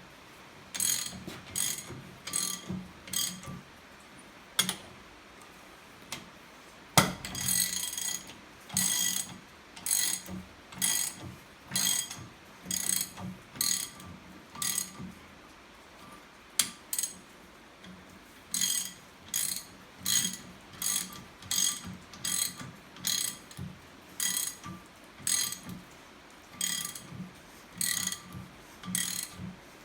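Hand ratchet wrench clicking in short strokes, about one a second, with a couple of pauses. One sharp knock about seven seconds in.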